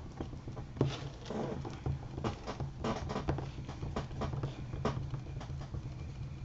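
Paper being pressed and rubbed down onto a card frame with fingers and a bone folder on a cutting mat: irregular small scrapes, rustles and taps, over a steady low hum.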